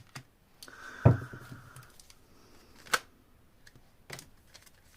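Scattered light clicks and taps, with a thump and a short rustle about a second in and a sharp click near three seconds.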